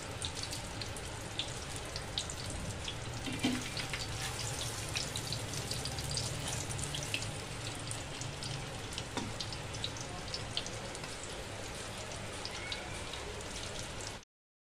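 Egg-and-breadcrumb-coated chicken cutlets shallow-frying in oil on a tawa: a steady sizzle with many small crackles and pops. It stops abruptly near the end.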